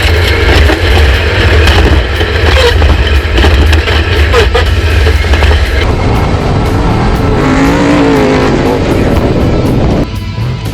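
Off-road race truck running at speed, its engine loud, with background music mixed in; the sound changes about six seconds in.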